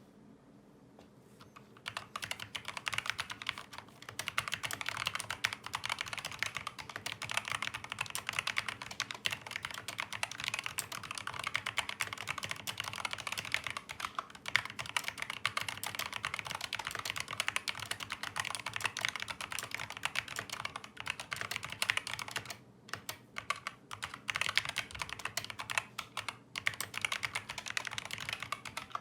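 Fast, continuous typing on a COX CK200 tenkeyless mechanical keyboard with Kailh optical linear switches, set on a long desk pad. The typing starts about two seconds in and stops briefly a few times near the end.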